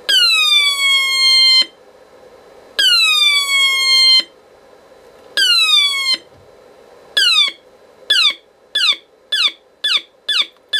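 Transistor electronic siren circuit heard through a signal tracer's loudspeaker: repeated tones that each start high, glide down in pitch and cut off. The first three last about a second and a half each; from about seven seconds in they get shorter and come faster, about two a second, as the potentiometer linking the oscillator's first and third transistors is turned.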